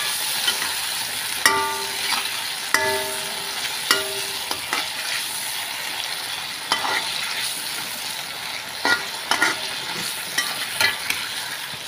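Metal spatula scraping and knocking against a black wok as half-fried chicken pieces and onions sizzle in a soy-based sauce. The strokes are irregular, about eight of them, and a few ring briefly over the steady sizzle.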